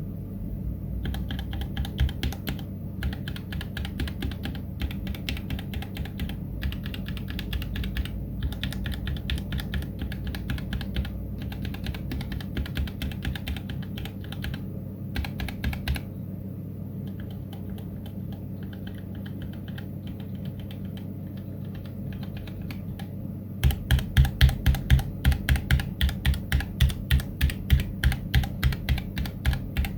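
Womier K66 mechanical keyboard with Gateron Red linear switches being typed on, a busy clatter of keystrokes over a steady low hum. Near the end the typing turns into a louder, evenly spaced run of about three strokes a second.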